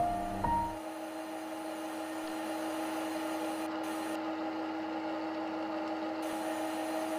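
Steady machine hum with one constant mid-pitched tone over an even hiss: the synthesized spindle and cutting sound of a CNC lathe simulator as the tool makes a turning pass. A short tail of music ends in the first second.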